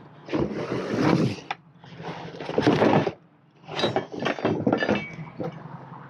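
Long cardboard shipping box being rummaged in and tipped up, the cardboard scraping and rustling with a few light knocks from items inside, in three separate bursts.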